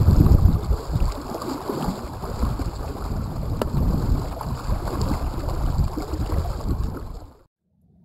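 Wind buffeting the microphone over water rushing along the hull of a Kells 23 sailboat under sail, heaviest at the start; it cuts off suddenly near the end.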